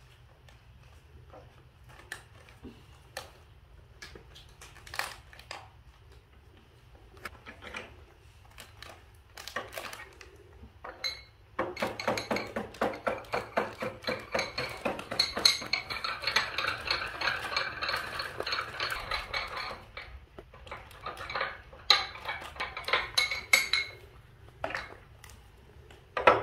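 A small spoon clinking against a cup or dish of mixed cough medicine: scattered light clinks at first, then, about halfway through, a long run of fast, continuous clinking and scraping with a faint ringing for several seconds, and a few more clinks near the end.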